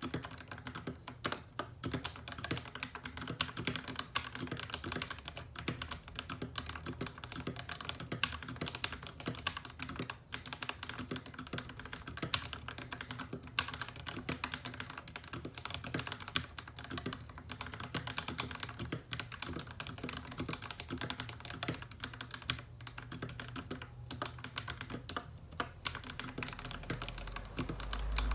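Continuous fast typing on a Royal Kludge RKG68 mechanical keyboard with lubed Akko CS Rose Red linear switches and stock keycaps. The lube leaves the keystrokes deep and free of spring ping. A low rumble comes in near the end.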